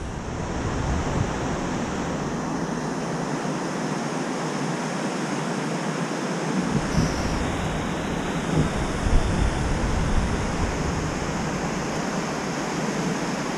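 Whitewater rushing steadily through a rocky river falls and chute. Wind buffets the microphone with low rumbles and a few bumps in the middle.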